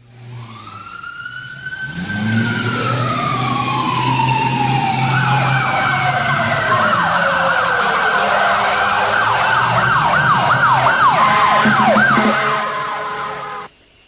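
Emergency vehicle sirens fading in from silence: long wails sweeping up and down in pitch, then from about five seconds in a fast yelping warble over a steady low hum. They cut off suddenly near the end.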